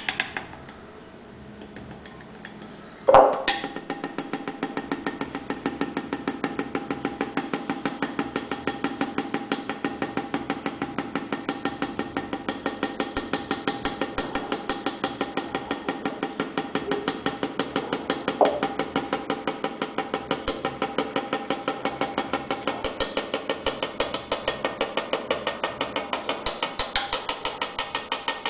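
Flour sifter being worked over a bowl: a knock about three seconds in, then steady, even clicking of about three to four strokes a second.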